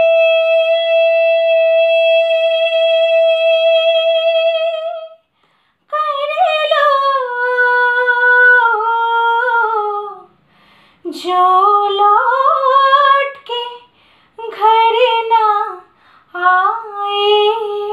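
A woman singing solo: one long held note for about five seconds, then, after a short pause, several melodic phrases that rise and fall, separated by brief breaths.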